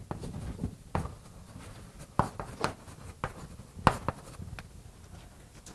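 Writing by hand during a lecture: a string of irregular sharp taps and scratches, the loudest about four seconds in, over faint room tone.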